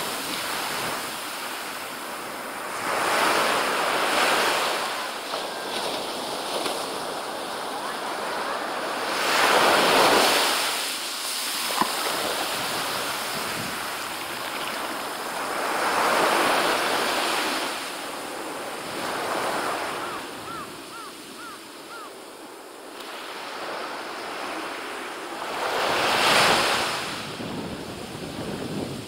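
Small ocean waves breaking and washing up a sandy beach, a steady surf hiss that swells four times as waves come in and run back.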